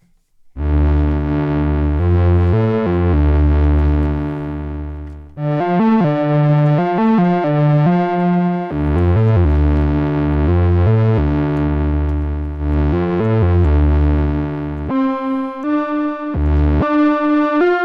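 Synth keyboard chords with a deep bass line, played back from Maschine's instrument kit; about fifteen seconds in the bass drops out, leaving a thinner, higher, plucked melody.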